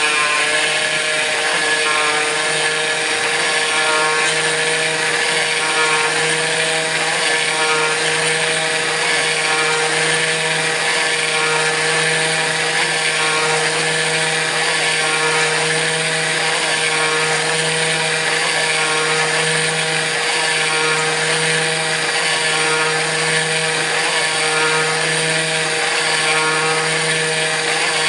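Kress FME-1050 router spindle on a CNC machine, running steadily while milling aluminium, with a faint pulsing about once a second.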